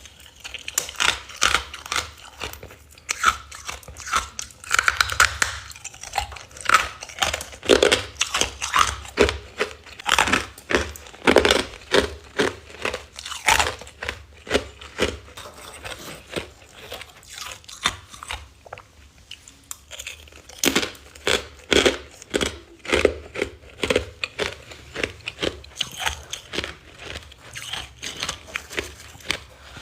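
Close-miked bites and chewing of freezer frost ice: repeated crisp crunches in irregular runs, with brief pauses between mouthfuls.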